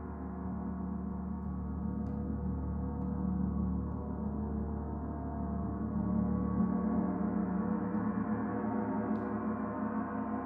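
Paiste Saturn planetary gong, tuned to D at 147.85 Hz, ringing in a sustained, dense wash of overtones that swells gently a few times.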